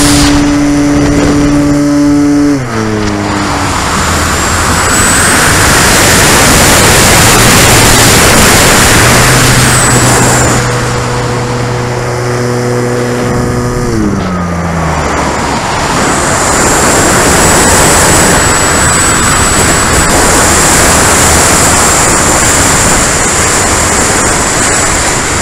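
Onboard sound of an RC aerobatic airplane in flight: the motor and propeller running under heavy wind rush across the microphone. The motor's pitch steps down twice, about two and a half seconds in and again around fourteen seconds, as the throttle is pulled back.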